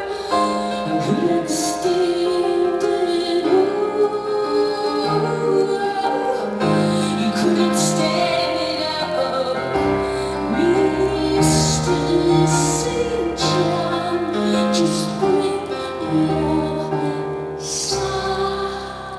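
Live band music: a woman singing over piano and keyboards, with a stepping bass line and cymbal crashes. The song winds down and thins out just before the end.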